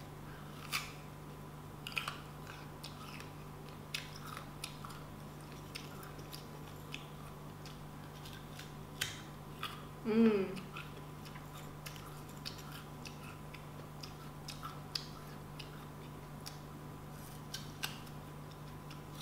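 Close-miked biting and chewing of crisp pink guava: scattered sharp crunches and wet mouth clicks. A short hummed voice sound about ten seconds in.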